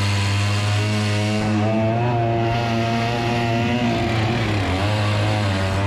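A 125cc two-stroke chainsaw engine powering a longtail boat propeller runs loud and hard at steady high revs, its pitch wavering slightly up and down.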